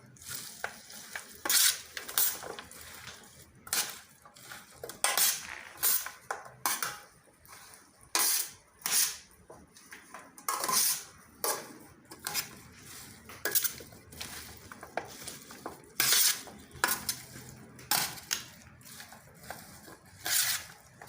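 Utensils clinking and scraping against a bowl as chopped chicken salad dressed with mayonnaise is tossed and mixed, in irregular knocks about one a second.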